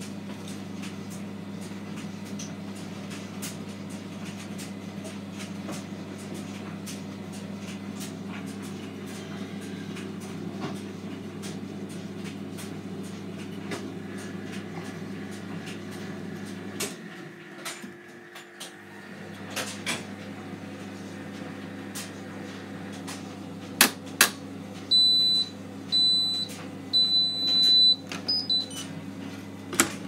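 Hotpoint front-loading washing machine running with a steady motor hum as the drum turns a wet towel. The hum drops away for a couple of seconds about two-thirds of the way through, then returns. Near the end come two sharp clicks and then four high electronic beeps from the machine, the third one longer.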